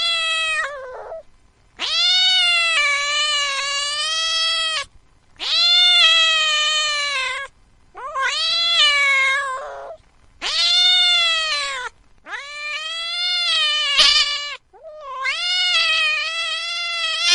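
A cat yowling in a series of about six long, drawn-out calls, each two to three seconds long with short pauses between them.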